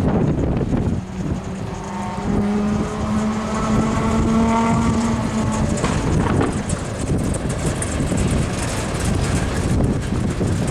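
Five-chime Nathan K5LA air horn on a CSX GE AC44CW locomotive sounding one held chord for about four seconds, starting about two seconds in. Heavy wind buffeting on the microphone throughout.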